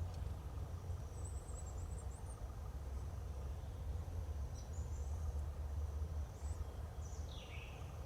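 Faint, very high, thin whistled notes of a hazel grouse, with a few other faint bird calls, including a short falling note near the end, over a steady low rumble.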